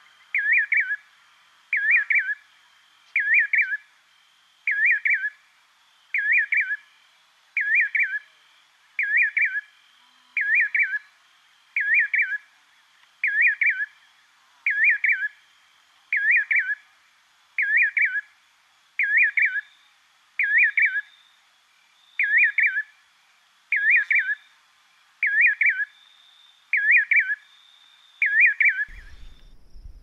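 A nightjar singing: the same short whistled phrase, wavering up and down in pitch, repeated over and over about once a second. The calls stop just before the end.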